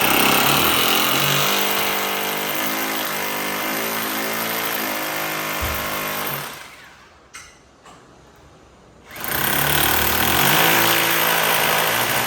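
Rotary hammer drill boring into a masonry wall in two long runs, the first about six seconds and the second about three, with its motor pitch shifting under load. A couple of light knocks fall in the pause between the runs.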